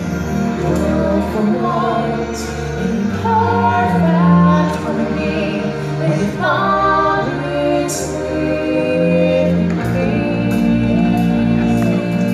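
Live stage-show music: sung melody lines over a sustained band backing, with light percussion hits recurring throughout.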